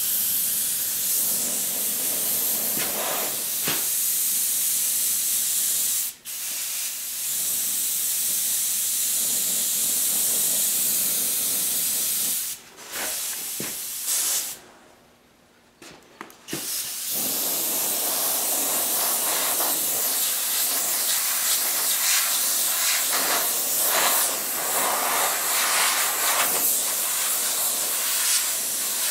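Airbrush spraying paint with a steady hiss of air, broken off briefly a few times as the trigger is let go, with a pause of about two seconds near the middle.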